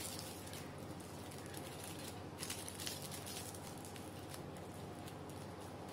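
Faint crinkling of thin chocolate wrapping paper as hands twist it around a chocolate toffee-style: a few soft, irregular rustles over a steady low hum.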